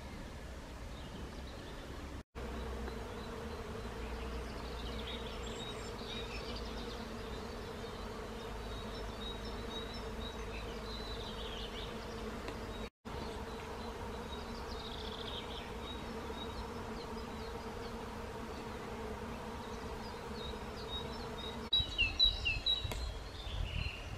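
Bees buzzing in a steady hum, with short high bird chirps now and then that grow louder and more frequent near the end. The sound cuts out completely for an instant twice.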